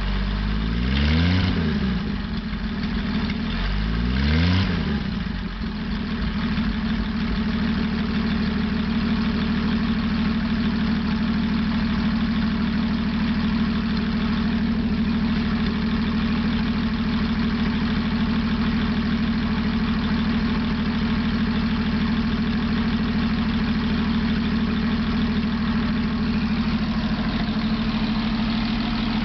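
M29C Weasel's Studebaker six-cylinder flathead engine, freshly rebuilt and on its first runs, is revved up and back down twice in the first few seconds. It then settles into a steady idle.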